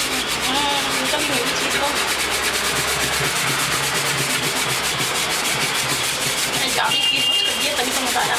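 Dishes being scrubbed at a kitchen sink: a steady, rough rubbing noise.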